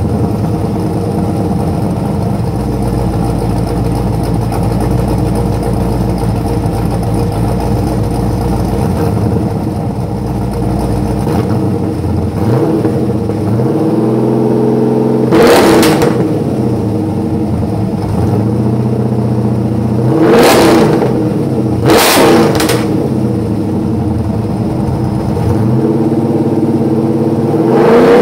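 C4 Corvette's LT4 small-block V8 through a straight-through exhaust with only the stock resonator. It idles steadily for about ten seconds, then the throttle is worked: slower revs rise and fall, then quick sharp blips come about halfway through and a few more later.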